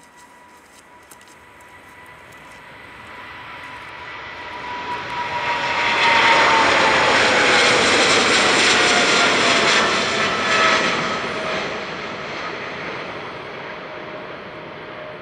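Boeing 777-300ER's GE90-115B turbofans at takeoff power as it rolls past and climbs away. The roar swells to a peak about six seconds in, holds, then fades, while a fan whine falls steadily in pitch as the jet passes.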